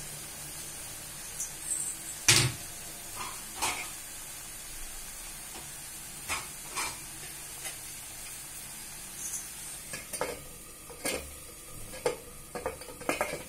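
Chopped ridge gourd sizzling steadily in a clay pot, with scattered knocks and clinks against the pot, the loudest about two seconds in. Near the end a stainless steel lid clinks several times as it is set onto the clay rim to cover the pot.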